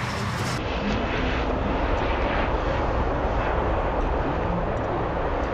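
Steady engine-like rumble with an even hiss above it, holding level throughout.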